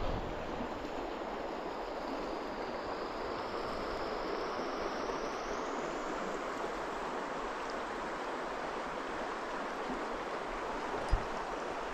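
Creek water rushing steadily over rocks. A single short knock sounds near the end.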